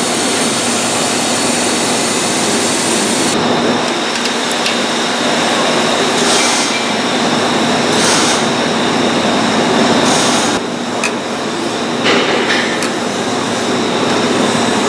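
Steady, loud machine noise with a constant hum running under it, like shop machinery or ventilation. The high hiss drops off about three seconds in.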